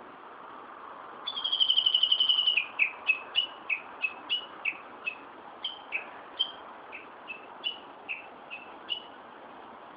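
A songbird singing: a fast trill about a second and a half long, then a string of short whistled notes, two or three a second, that thin out towards the end, over a steady background hiss.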